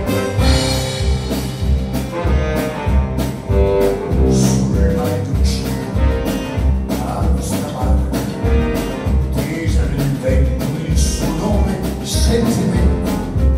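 Small band playing a song live: a man sings over double bass, saxophone and drums, with a steady beat of about two pulses a second.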